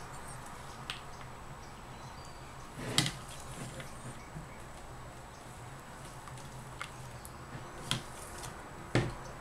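A few scattered light knocks and taps of soapmaking utensils, the loudest about three seconds in and others near eight and nine seconds, over a faint steady hum.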